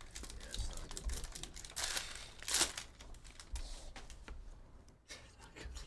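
Trading-card pack wrappers crinkling and tearing as packs are ripped open, with short ticks and rustles of cards being handled; the loudest tears come about two seconds in.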